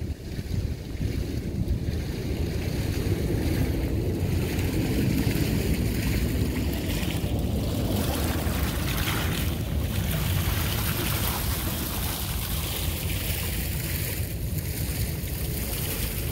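Wind buffeting the microphone: a low, steady rumble.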